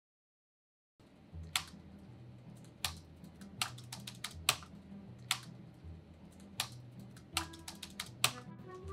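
Typing on a laptop keyboard: irregular sharp key clicks starting about a second in, over a low pulse that repeats about every second and a half. A few musical tones come in near the end.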